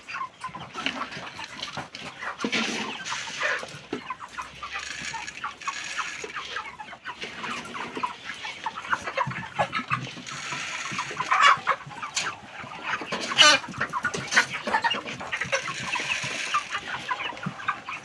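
A large flock of white broiler chickens clucking and calling in a steady, overlapping chatter, with a few louder sharp sounds about eleven and thirteen seconds in.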